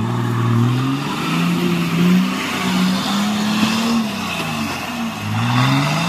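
Lifted Nissan Patrol's engine revving hard over and over, its pitch climbing and dropping, as its oversized mud tyres spin and fling mud: the truck is bogged in deep mud and fighting for traction.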